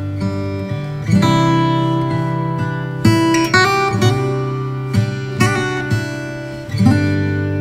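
Background music of a strummed acoustic guitar, chords ringing out and decaying, with fresh strums about a second in, at three seconds, and near the end.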